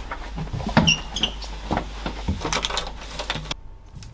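Scattered knocks and rustling of people moving around a table over a low steady hum, with a brief squeak about a second in. Near the end it cuts to quieter room tone.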